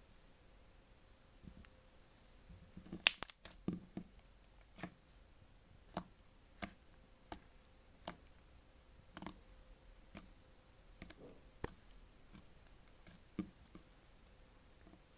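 Slime being pressed and worked by hand, giving sharp little clicking pops at irregular intervals, about one a second, with a louder flurry about three seconds in.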